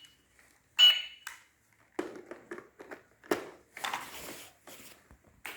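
Toy cash register giving a short high beep as a key is pressed, about a second in, followed by several seconds of light plastic clicking and clattering as the toy is handled.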